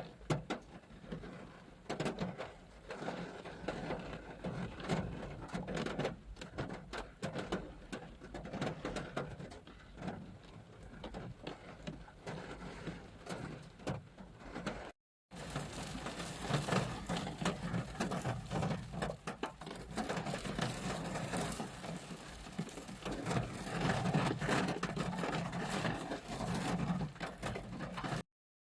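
Rain and hail hitting a car's roof and windows, heard from inside the car: a dense patter of small hits. It breaks off for a moment about halfway, then comes back denser and louder, and stops again shortly before the end.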